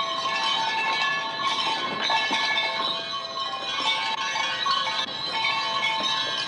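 Orchestral music with many held notes sounding together, bright and bell-like in the upper range.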